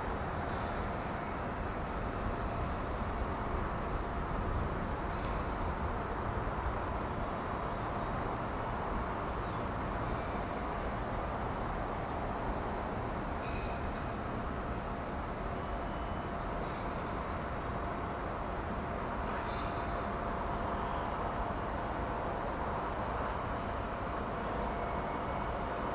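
Steady outdoor background noise: a constant low rumble with a faint steady hum and a few faint, short high chirps.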